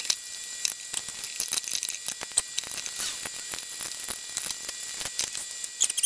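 Small screwdriver and the plastic parts of a Dyson cordless vacuum's cyclone unit clicking and scraping as it is taken apart by hand: a string of light, irregular ticks and rattles.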